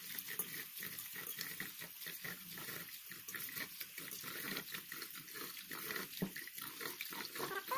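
Tap water running into a stainless steel bowl while a hand swishes and rubs glutinous rice in the water, with irregular small splashes.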